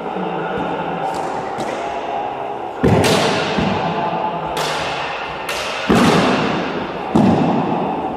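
Lightsaber blades striking each other in sparring: a string of sharp knocks, about seven in all, three of them loud. Each one rings out in the long echo of a big sports hall.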